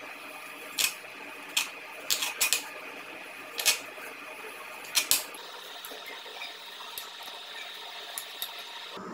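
Kitchen knife cutting the crusts off slices of soft white bread on a wooden cutting board: sharp knocks of the blade against the board, about eight in the first five seconds, then a few fainter ticks.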